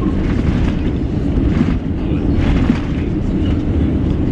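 Steady low rumble and rush of an Airbus A350-900 rolling out on a wet runway just after touchdown, heard from inside the cabin as it slows down.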